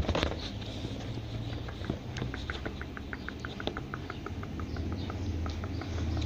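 Dog's fur rubbing against the microphone, with a quick run of short high squeaks at about six a second through the middle that fades away.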